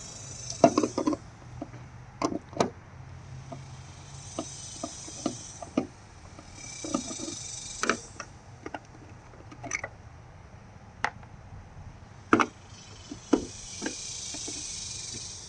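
Phillips screwdriver working the screws out of a license plate light housing: scattered small clicks and ticks, with several scraping stretches of about a second each.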